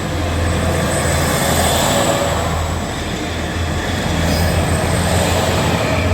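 JR KiHa 47 diesel railcar running past at close range: a steady, loud low engine drone over the noise of its wheels on the rails.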